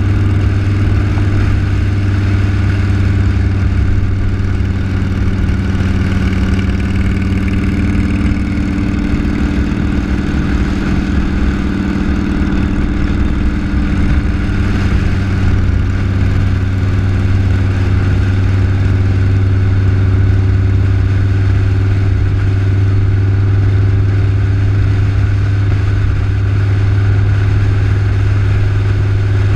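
Motor vehicle engines running steadily at road speed, with road and wind noise. The engine note shifts a little about halfway through.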